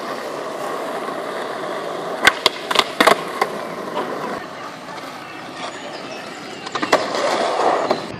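Skateboard wheels rolling on concrete, with a quick run of sharp wooden clacks about two to three seconds in as the board is popped and lands. A few more clacks come near the end as the rolling grows louder.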